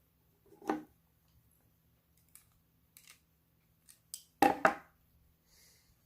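Small hard-plastic clicks and taps as caps are screwed by hand onto the studs of an e-collar's wing attachment, with two sharper knocks close together a little past the middle.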